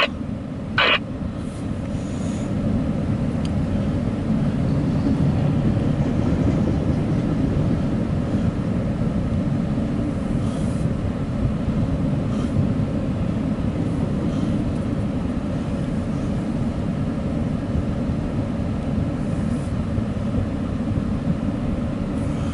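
Double-stack intermodal container cars of a CSX freight train rolling past: a steady low rumble of wheels on the rails, with a few faint clicks now and then.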